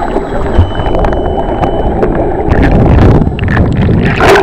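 Muffled rushing and bubbling of water around a submerged camera as a swimmer dives, with scattered small knocks; a sharper splashing burst comes just before the end.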